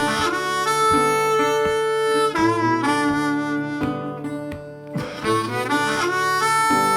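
Background music: harmonica playing a melody over guitar, with a dip about four seconds in.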